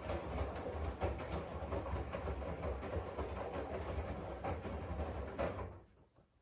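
AEG 7000 Series Lavamat washing machine running with a steady low hum and a dense clatter of knocks, which stops abruptly just before the end.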